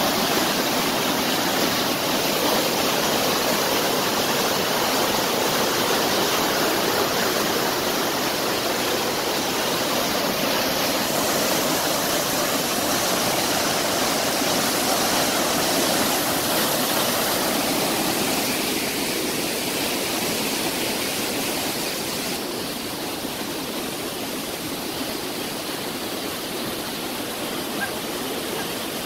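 Swollen, muddy creek in flood after heavy rain, its water rushing and churning through rapids in a steady, unbroken rush. The rush gets a little quieter for the last third.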